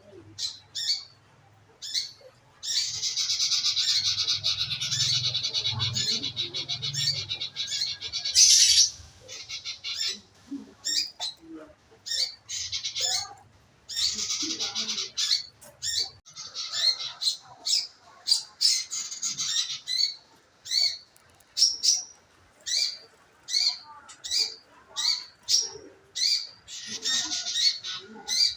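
Manggaran bird calling: quick series of short, sharp chirps, several a second, broken by long chattering trills, the longest running about six seconds from about three seconds in. It is played as a lure ('pancingan') to get a caged bird of its kind to sing.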